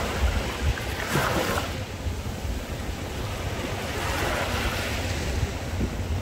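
Small sea waves washing in at the shoreline, swelling about a second in and again around four seconds in, over a low rumble of wind on the microphone.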